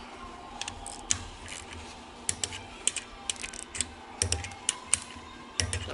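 Torque wrench ratcheting and clicking as the rocker arm bolts on a Cummins ISL diesel cylinder head are torqued down. Irregular sharp metallic clicks, a few of them with a duller knock.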